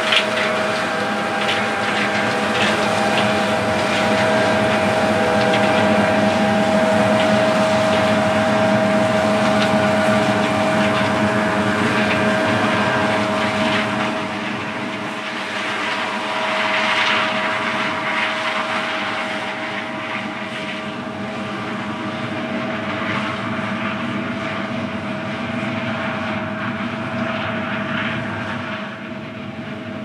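Combine harvester running steadily while harvesting corn, with a constant whine over the machine noise. It grows gradually fainter from about halfway through as the combine moves off across the field.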